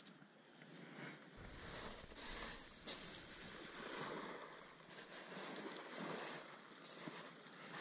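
Sea waves breaking and washing on a shingle beach, with wind buffeting the microphone from about a second and a half in.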